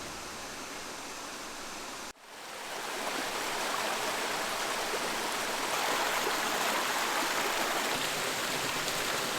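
Rushing water of the Haselbach brook, a steady hiss. About two seconds in it cuts off for an instant and comes back louder.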